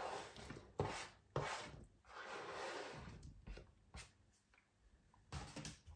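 Chopped salami and onion being scraped off a plastic cutting board into the cooking pot: a few short scrapes and light knocks, then a longer scrape about two seconds in.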